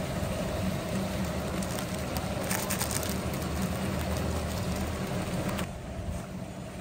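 Cooking fire under a large steaming pot, a steady low rumble with a few faint crackles about two and a half seconds in; it drops quieter near the end.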